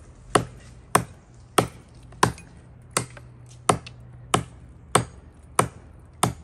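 Hatchet chopping into a limb knot on a log: about ten steady, even strikes, roughly three every two seconds.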